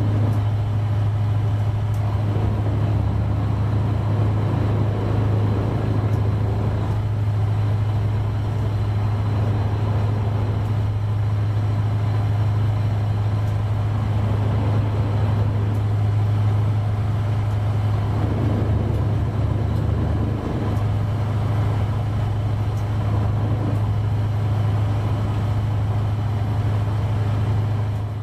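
Passenger boat's engine droning steadily, heard from inside the cabin as a loud low hum with a slight change in its note about twenty seconds in.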